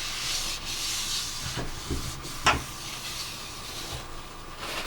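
Rubbing and scuffing against a surface, with a few light knocks about halfway through.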